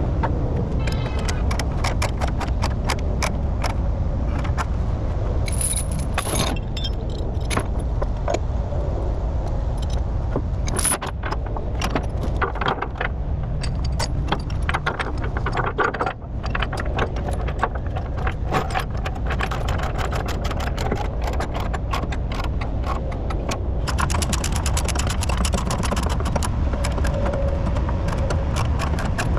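Steel tie-down chains rattling and clinking over the steady rumble of an idling diesel engine.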